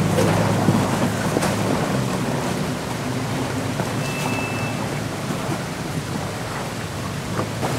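Nissan Patrol 4x4's engine running at low revs as it crawls up a muddy, rutted forest track, growing slightly fainter as it pulls away.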